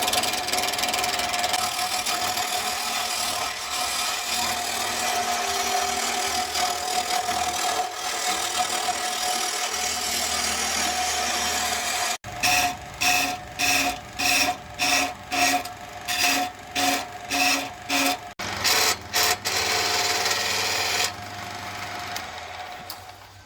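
Abrasive tool working wood, likely a knife handle being shaped: a steady rasping, then back-and-forth filing or sanding strokes at about two a second for some seven seconds.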